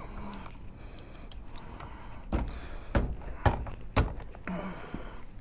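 Reloading equipment being worked on the bench to throw a powder charge for checking: four sharp metallic clicks and knocks about half a second apart, from an RCBS turret press and powder measure, then a softer rattle.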